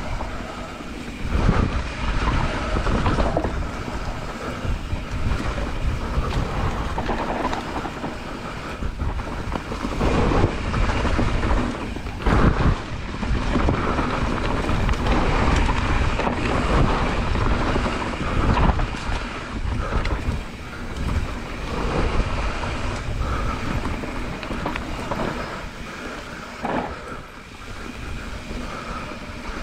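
Mountain bike riding down a rough dirt trail: tyres rolling over dirt and rock, with the chain and frame rattling and knocking over bumps, and wind buffeting the camera microphone.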